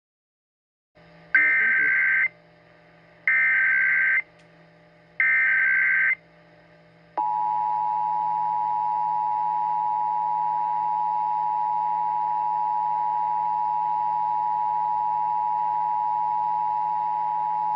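Emergency Alert System tones: three bursts of SAME digital header data, each about a second long, then about seven seconds in the steady two-tone EAS attention signal, over a faint hum.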